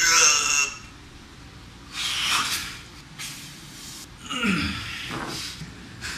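A man straining with effort: a loud sharp burst at the start, then hard forced breaths, and a falling grunt about four and a half seconds in.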